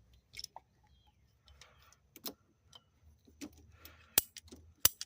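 Handling noise from working on the car's fuel line: a string of irregular sharp clicks and taps with light rustling, two louder clicks near the end.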